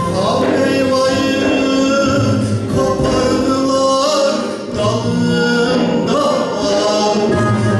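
Male soloist singing a Turkish folk song in long, wavering held phrases over bağlama accompaniment, with a short break between phrases about four and a half seconds in.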